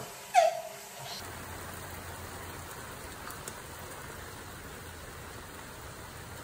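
A toddler's brief falling squeal, then from about a second in, steady rain falling.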